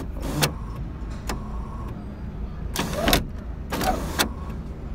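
Honda Civic's electric sunroof mechanism running in several short spurts, each about half a second long, while the glass is worked open and shut, with a low steady hum underneath.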